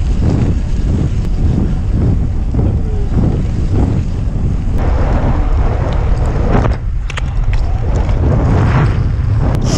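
Heavy wind buffeting the rider's camera microphone at racing speed, over the rumble of gravel-bike tyres on a gravel road, with a few sharp clicks and rattles from the bike.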